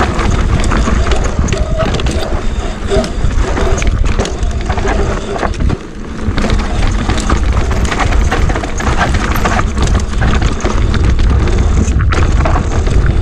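Mountain bike riding down a rocky dirt trail: wind rumble on the camera's microphone mixed with the rattle and clicks of the bike and its tyres over dirt and rock. The noise drops briefly about six seconds in.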